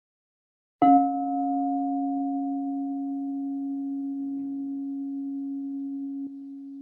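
Crystal singing bowl struck once about a second in, then ringing with a steady low tone and a fainter higher overtone, slowly fading. Near the end there is a faint click as the ring drops a little in level.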